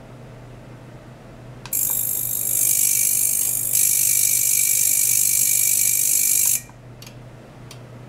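Ultrasonic oscillation probe in a water tank being driven by its oscillator: a loud, high hiss that starts suddenly about two seconds in, steps louder midway, and cuts off suddenly about a second and a half before the end. Two faint clicks follow.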